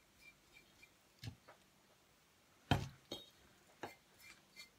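A glass bottle being handled and turned over on the work surface gives about five light clinks and knocks. The loudest comes a little under three seconds in.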